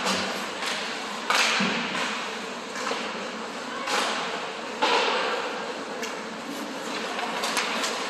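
Ice hockey play in an echoing rink: sharp bangs of the puck and sticks against the boards. Three loud ones come about a second in, at about four seconds and just after, with fainter knocks between, each ringing on in the hall.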